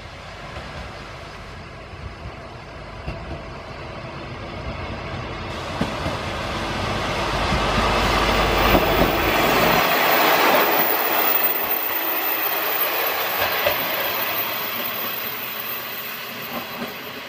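JR Shikoku 1000 series single-car diesel railcar running past, with its wheels clicking over the rail joints. It grows louder to a peak about halfway through, then fades as it draws away.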